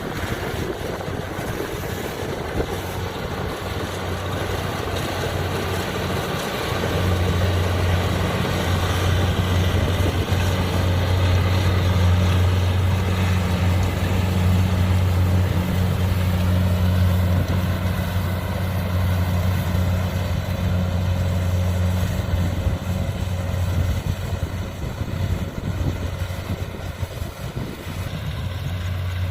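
Kubota DC70 combine harvester running steadily with its diesel engine droning at a low, even pitch. It grows louder a few seconds in and eases off near the end.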